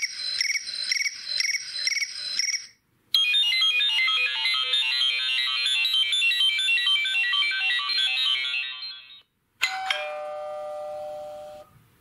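iPhone ringtones played one after another: a pulsing electronic ring repeating about two or three times a second, then after a short break a quick run of bright, plucked-sounding notes for about six seconds, then a single chime that rings on and fades.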